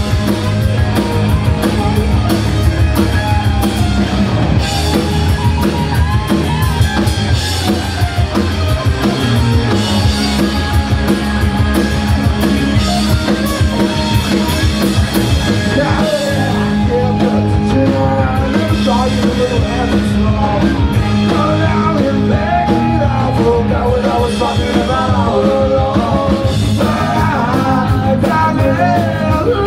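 Punk rock band playing live at full volume: drum kit, distorted electric guitars and bass, continuous and loud.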